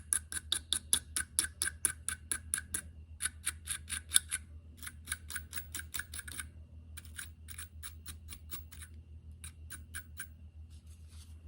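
Rapid metallic clicking from a hand tool worked on an oil burner's crusty ignition electrodes. The clicks come at about seven a second in several runs with short pauses, thinning out toward the end, over a steady low hum.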